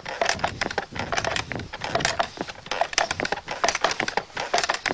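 Baby Daisy hand-operated bellows vacuum cleaner being worked on a carpet: a busy, irregular clatter of knocks and clicks from its mechanism.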